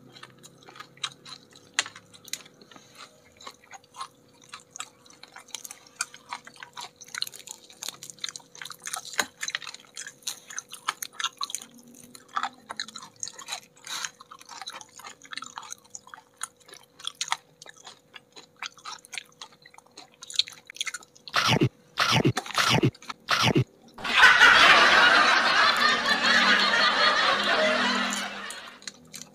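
Close-miked eating of crispy battered fried chicken wings: a steady run of small crisp crunches and chewing. Near the end come a few loud sharp cracks, then about four seconds of loud, dense rough noise.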